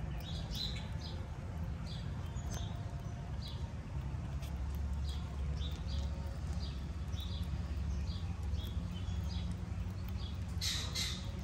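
Small birds chirping, short high chirps repeating a few times a second, over a steady low rumble, with a few faint clicks as a gray squirrel gnaws a nut.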